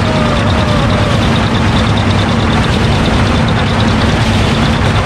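Small open-carriage toy train running steadily along, its engine and wheels making a continuous low hum with a faint fast ticking over it.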